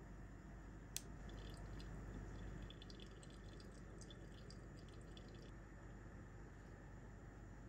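Hot pour-over coffee dripping onto ice in a glass server. A sharp click about a second in, then faint scattered ticking and crackling for a few seconds.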